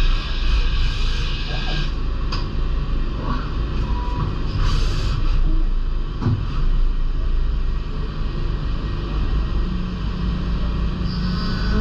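DMG Mori NLX2500SY CNC turn-mill lathe running a machining cycle: a steady low hum with a hiss that stops about two seconds in. A few sharp clicks and a brief burst of hiss come near the middle.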